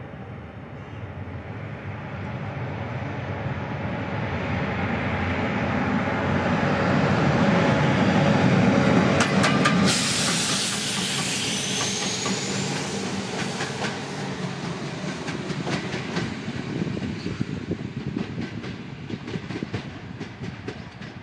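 CFR Class 41 electric locomotive approaching and passing close by: a steady rail rumble builds, peaks as the locomotive draws level about halfway through, then slowly fades. A sharp hiss cuts in as it goes past, and wheels clack over rail joints during the passing and as it moves away.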